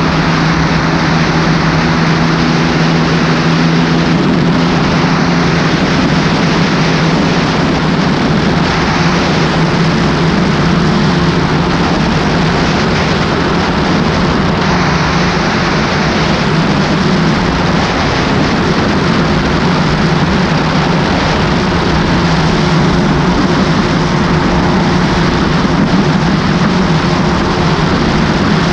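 Mercury Optimax two-stroke outboard running steadily at speed, its engine tone under a loud, even rush of wind and water from a bass boat hull planing across choppy water.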